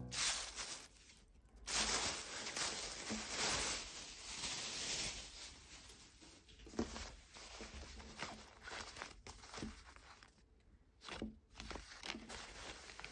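Thin plastic packaging crinkling and rustling as it is torn open and pulled off a quilted nylon mini bag, the densest rustling in the first half. Softer scattered rustles and small clicks follow as the padded bag and its paper tag are handled.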